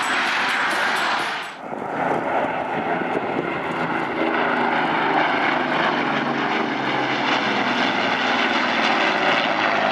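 About a second and a half in, a dense noise cuts off. A formation of World War II piston-engine warbirds then flies past with its engines droning steadily.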